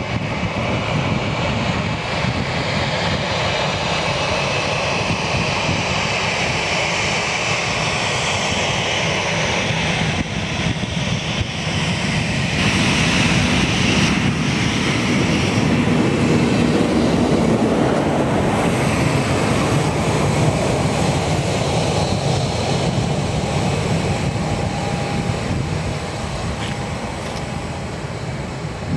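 Boeing 737-800's CFM56 jet engines running at taxi power: a steady rumble with a high whine. It grows louder about halfway through, then eases off toward the end.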